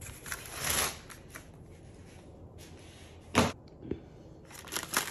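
Small paper gift bag being picked up and handled, rustling, with a few light clicks and one sharp tap about three and a half seconds in.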